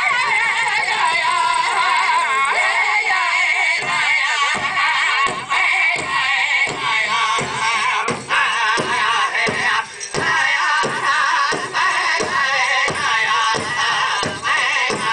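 Powwow drum group singing in wavering voices over a large powwow drum, a chicken dance song. From about four seconds in the drum beats stand out clearly, steady at about three beats every two seconds.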